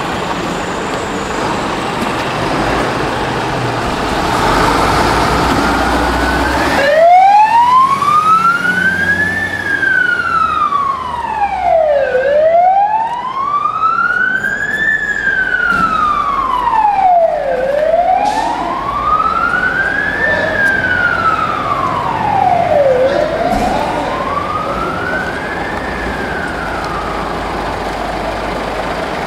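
Scania fire engine's diesel engine pulling out on a turnout, then, from about seven seconds in, its siren on a slow wail, rising and falling about every five and a half seconds, four full sweeps.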